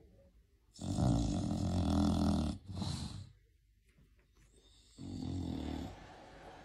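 Snoring: one long, loud snore about a second in, a short breath right after it, and a softer snore a little after halfway.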